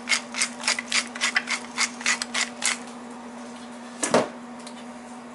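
Pepper being dispensed into a bowl of pineapple glaze: quick, even rasping strokes, about six a second, that stop a little under three seconds in. A single knock follows about four seconds in, over a steady low hum.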